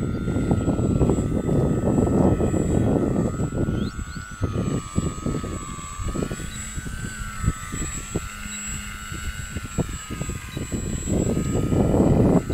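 Radio-controlled model airplane's motor and propeller whining steadily, the pitch wavering gently up and down. Strong wind buffets the microphone, heaviest at the start and again near the end.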